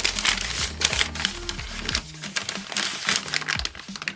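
Background music over the crinkling and rustling of packaging being handled.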